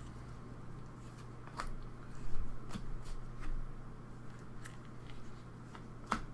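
Hands handling trading cards and packs: scattered light clicks and crinkles, about eight in all, over a steady low electrical hum.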